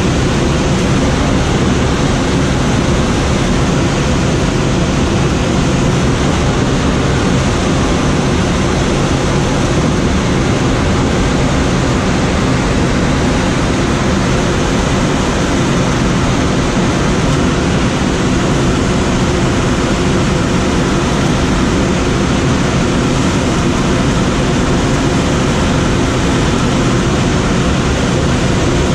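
Steady rush of air streaming over an engineless Schweizer SGS 2-32 sailplane in gliding flight, an even wind noise heaviest in the low end with no engine sound.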